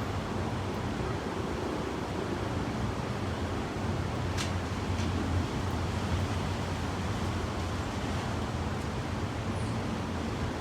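Steady wind rushing, with a low rumble of wind buffeting the microphone.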